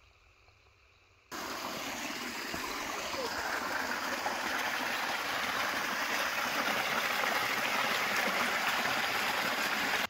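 Small creek spilling over a rock ledge in a little waterfall: a steady rush of falling water that starts abruptly about a second in and grows slightly louder.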